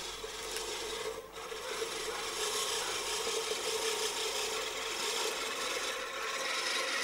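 AgriMate manual push reel lawn mower cutting grass as it is pushed along, its cylinder blades turning steadily against the bottom blade, with a brief dip about a second in.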